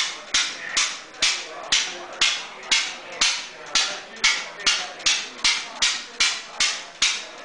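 Reproduction 1883 Daimler single-cylinder hot-tube gasoline engine running, each firing a sharp exhaust beat, evenly paced a little over two a second.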